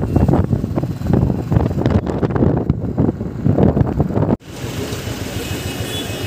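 Wind buffeting the microphone of a moving motorcycle, heavy and uneven over the road and engine noise. About four seconds in it cuts off sharply to steadier, quieter riding noise.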